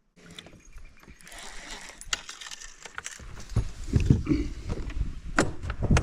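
Wind gusting and buffeting the microphone in uneven low rumbles, which get stronger about three seconds in, with scattered clicks and knocks of handling on a small boat.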